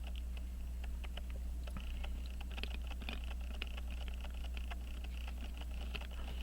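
Faint, irregular light clicks and taps of small pocket-watch parts being handled with tools, over a steady low hum.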